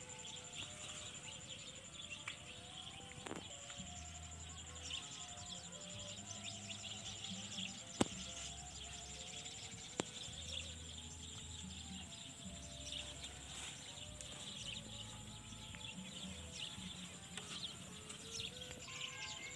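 Birds chirping over a steady high-pitched whine, with soft background music whose low notes come in from about four seconds in. Two sharp clicks sound about eight and ten seconds in.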